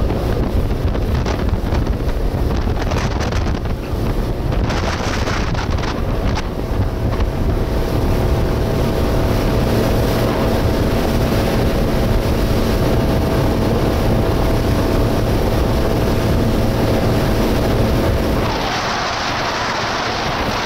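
Motorboat running at speed: a steady engine drone with rushing wake water and wind buffeting the microphone, a thin steady whine in the engine note through the middle. Near the end the low drone drops away and a hissing rush of water and wind takes over.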